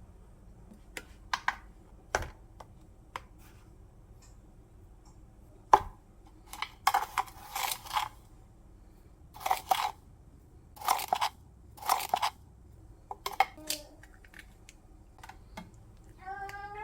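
Short, separate rustling and scraping sounds of food being handled in preparation, with a few sharp clicks in between.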